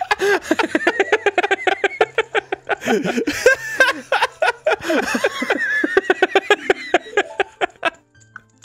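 People laughing hard, in quick breathless bursts of voiced laughter that keep going and then die away near the end.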